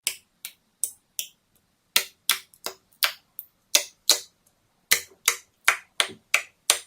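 Slime being squeezed and pressed, making a string of sharp, crisp clicking pops, about two to three a second with a couple of short pauses.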